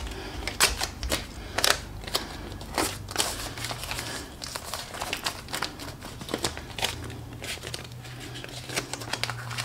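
Blue painter's tape being pulled off the roll, torn into strips and pressed and smoothed onto a sock-covered foot: an irregular string of short rasps and crinkles.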